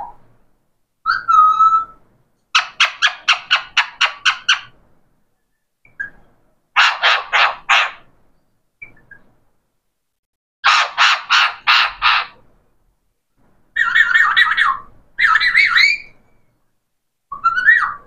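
Pet parakeet calling loudly in harsh, rapid runs of about five to eight notes, with pauses between runs; later calls are drawn out and wavering, and a short rising call comes at the end.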